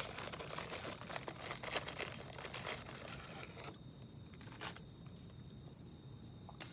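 Paper sleeve of saltine crackers crinkling and rustling as it is opened and a cracker is pulled out; the crinkling stops about four seconds in.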